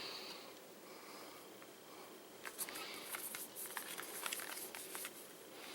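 Faint rustling and scattered light clicks of a product box and its packaging being handled, starting a couple of seconds in.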